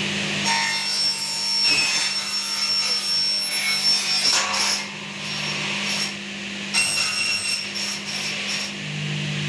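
Electric metalworking machine running with a steady hum, while an aluminium profile scrapes and squeals as it is worked through it, in two stretches: from about half a second in to nearly five seconds, and again from about seven to nine seconds.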